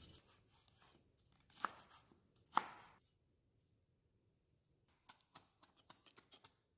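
Chef's knife chopping vegetables on a wooden cutting board. A few separate cuts come first, then a run of quick, light chops near the end, as through a pile of cilantro.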